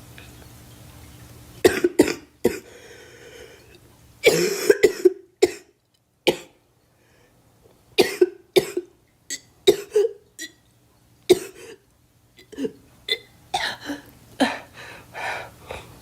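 A girl coughing in repeated short, sharp coughs, grouped in clusters that start about two seconds in and keep coming with brief pauses between them.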